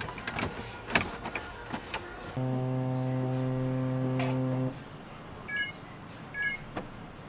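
Clicks and knocks of an iPad being handled and seated in a dash-mounted dock, then a loud, steady low electrical buzz for about two seconds that starts and stops abruptly, followed by two short electronic beeps.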